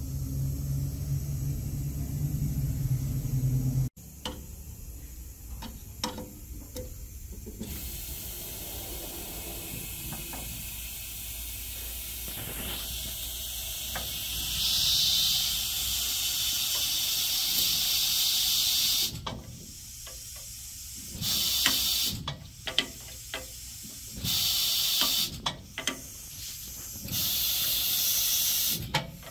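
Compressed air hissing at a valve-seat cutting machine: a long steady hiss, then several shorter bursts of about two seconds each, with small clicks and knocks of tooling being handled. A low steady hum cuts off about four seconds in.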